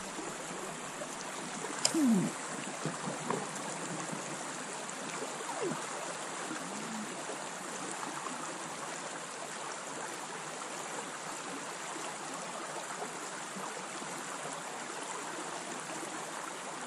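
Shallow river running over stones in a riffle, a steady rushing and gurgling. A sharp knock about two seconds in, with a few lighter knocks just after.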